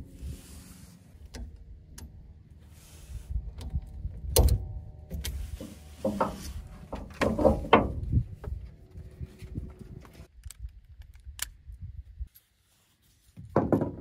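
Ratchet tie-down strap being handled: nylon webbing rustling and sliding, with scattered clicks from the metal ratchet buckle. The clicking and rubbing is loudest about halfway through, and a short burst comes just before the end.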